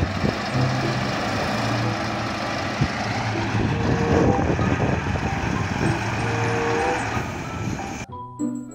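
Heavy multi-axle dump truck's diesel engine running as the truck drives over rough, uneven ground. The truck's sound cuts off suddenly near the end.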